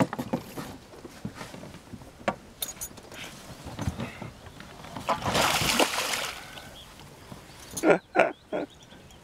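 Hooked pike splashing at the surface beside an inflatable boat while it is brought in to be landed, with a loud rush of splashing about five seconds in and a few sharp knocks near the end.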